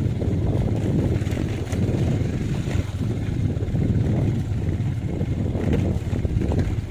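Steady low rumble of a running vehicle engine, mixed with wind buffeting the microphone.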